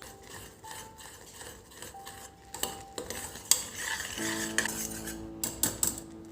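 Small hard household objects clinking and knocking as they are handled and wiped, with a brief rubbing hiss midway, over soft background music.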